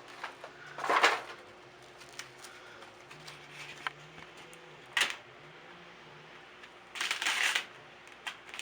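A few short rustling handling noises: one about a second in, a brief one around five seconds and a longer one near the end, with faint clicks between.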